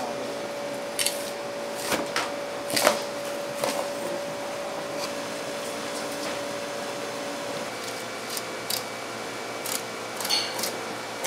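Kitchen work on a tuna-cutting counter: sharp knocks and clicks of knife and utensils against a cutting board, coming irregularly, the loudest about three seconds in. Underneath runs a steady mechanical hum with a faint steady tone.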